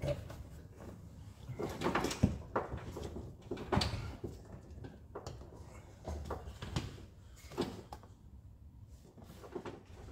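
Irregular knocks, clicks and rustling as a car's wiring loom is handled and fed through the stripped dashboard and bulkhead area, with the loudest knock about two seconds in.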